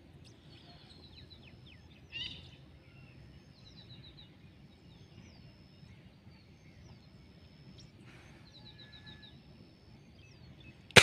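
Small birds calling over a low steady background rumble: short chirps and quick runs of descending notes, with one louder call about two seconds in. At the very end comes a single sharp, loud crack of the air rifle firing.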